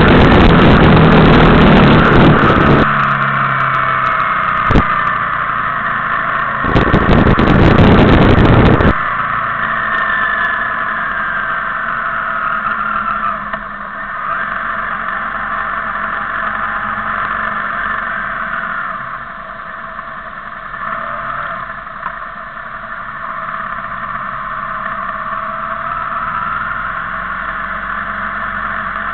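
Motorcycles riding in a group, engine note rising and falling, with heavy wind buffeting on the microphone at the start and again from about seven to nine seconds in.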